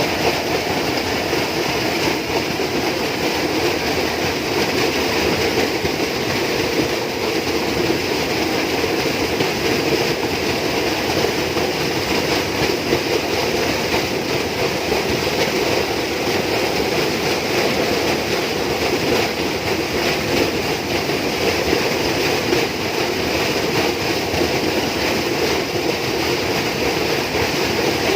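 Steady, dense tropical rainforest ambience: a constant, unbroken wash of sound with no distinct events, fairly loud throughout.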